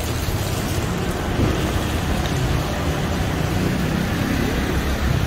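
Street noise in the rain: a steady hiss of rain and wet road with traffic going by, over a low rumble.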